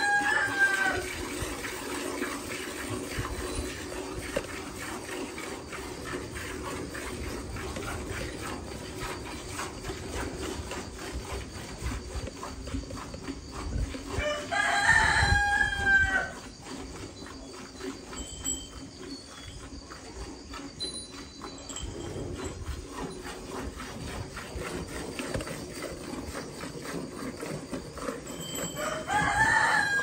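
A rooster crowing three times, roughly fifteen seconds apart, each crow about a second and a half long. Between crows, a cow's milk squirts steadily into a steel bucket as it is milked by hand.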